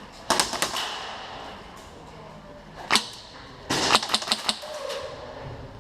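Airsoft guns firing. A quick volley of sharp snapping shots comes near the start, a single shot follows about three seconds in, and another rapid volley comes just after it.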